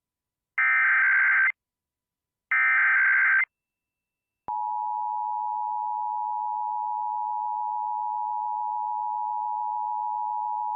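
Emergency Alert System test: the last two bursts of the SAME digital data header, a harsh buzzing screech lasting about a second each with a short gap between, then about four and a half seconds in the steady two-tone EAS attention signal (853 and 960 Hz) begins and holds.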